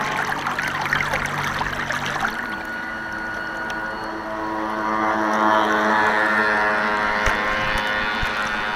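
Radio-controlled model boats on the water. For about the first two seconds there is splashing water close by over a low hum. Then comes the steady whine of a model boat's electric motor, growing louder as the boat passes close.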